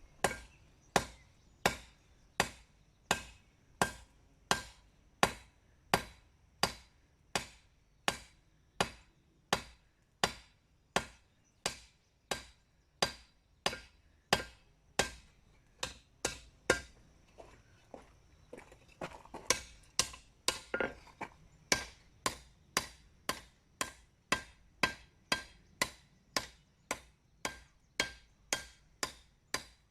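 Steady hammer blows on a hot damascus steel katana blade at the anvil, forging in the bevels, each strike with a short metallic ring. The blows come about once every 0.7 seconds at first and quicken to about two a second in the last third, with a brief flurry of lighter strikes just before that.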